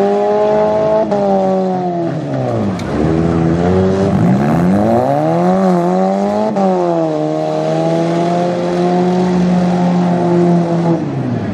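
Several four-cylinder demolition derby car engines revving hard, their pitch repeatedly dipping and climbing as the cars push against each other and spin their wheels in the mud.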